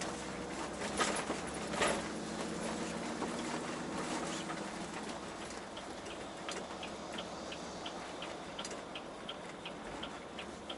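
Steady engine and road noise inside a moving truck's cab, with a couple of sharp knocks about one and two seconds in. From about halfway a turn-signal flasher starts ticking evenly, about three clicks a second.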